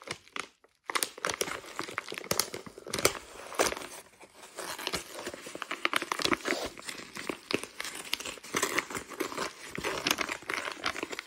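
Brown paper padded mailer envelope being torn open and crumpled by hand: irregular crinkling and ripping of paper, starting about a second in.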